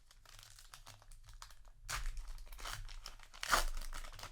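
Foil booster-pack wrapper crinkling as it is handled, in two louder bursts about two seconds in and again near the end.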